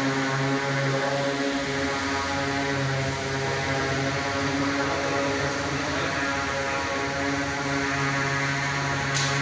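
2000 kVA generator set running steadily, its engine giving a constant deep drone. A short click comes near the end.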